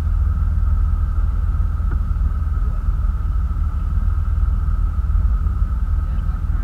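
Boat motor running steadily under a heavy low rumble, with a steady high whine above it.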